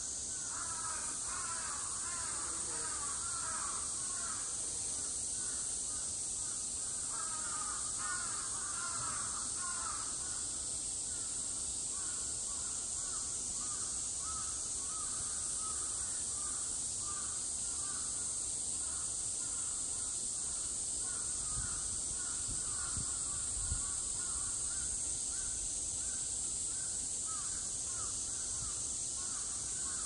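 Outdoor ambience of continuous animal calls: a steady high hiss with a run of short, repeating rippling calls underneath, busiest in the first ten seconds.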